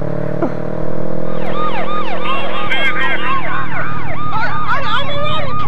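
Siren yelping: rapid, overlapping rising-and-falling whoops that start about a second in and keep going.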